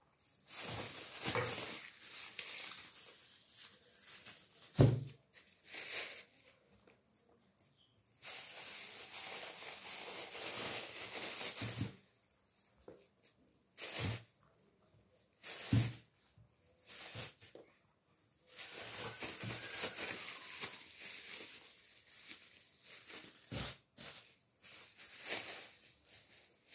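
Thin plastic bags crinkling and rustling as they are handled, filled with strawberries and twisted shut, in long stretches broken by short pauses, with a few short knocks.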